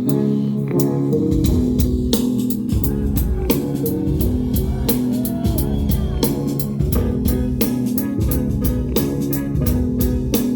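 Band music with no vocals: a drum kit keeps a steady beat over guitar and bass. The deep bass comes in about a second and a half in.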